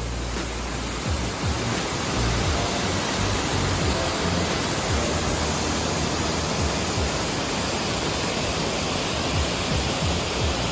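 Waterfall rushing steadily: a dense, even noise of falling and churning water.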